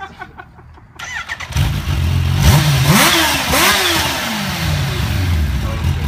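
Kawasaki H2's supercharged inline-four cranking and firing up about a second in, then blipped twice, its pitch rising and falling each time, before settling to a steady idle.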